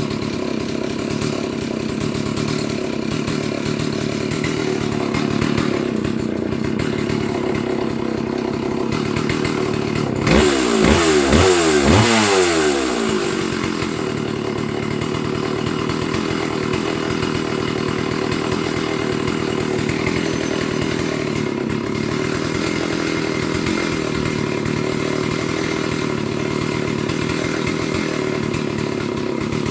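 Stihl 038 two-stroke chainsaw running steadily at idle. It is revved up once about ten seconds in, for two to three seconds, then drops back to idle.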